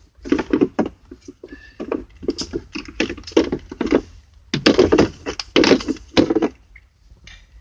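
Irregular plastic knocks, clicks and scraping as a cabin air filter and its plastic tray are pulled out of the housing behind the glove box, with a run of louder knocks about halfway through.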